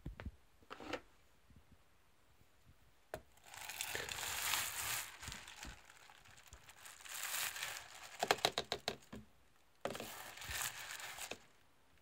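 Thin plastic bag liner inside a litter-disposal pail crinkling and rustling as a hand pushes it down into the bin, in three spells, the middle one ending in a run of quick crackles.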